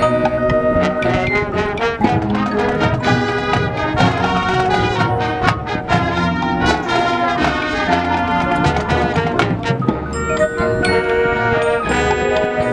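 High school marching band playing: the brass section sounds held chords and moving lines over frequent sharp percussion hits.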